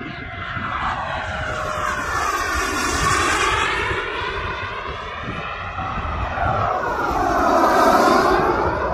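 Model turbine jets making two fast passes, one after the other: a high turbine whine over a loud rushing jet blast. The sound swells and fades twice, loudest about three seconds in and again near the end, and its tone sweeps as each jet goes by.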